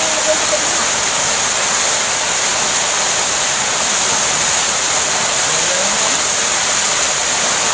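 Waterfall: a steady, even rush of water falling onto rocks and into a pool.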